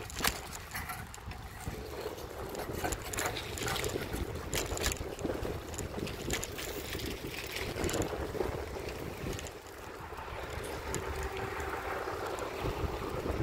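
Wind buffeting the phone's microphone and a steady low rumble from riding over pavement, with frequent small rattles and knocks from bumps.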